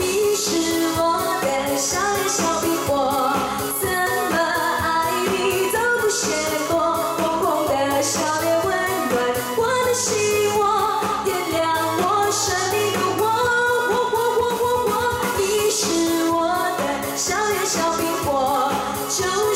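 A woman singing a pop song into a handheld microphone over a backing track with a steady beat.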